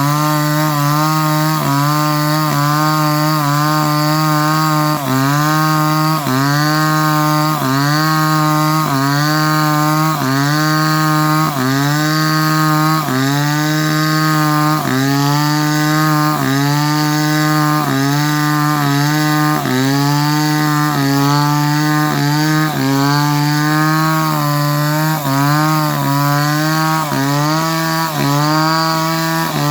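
Chainsaw engine running loud and continuously at high speed, its pitch repeatedly dipping and climbing back up about once or twice a second.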